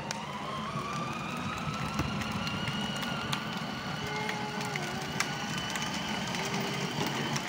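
Electric motor of a children's battery-powered ride-on ATV whining under the load of three small riders. Its pitch rises over the first couple of seconds, then holds steady, over a rough rumble with small crackles from the hard plastic wheels rolling on asphalt.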